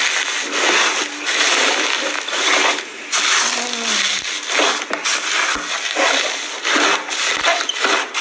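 Thick, fluffy lavender slime being pressed and kneaded by hand, giving a run of sticky, crackly squishes about twice a second.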